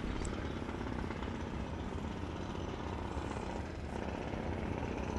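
Steady outdoor background rumble.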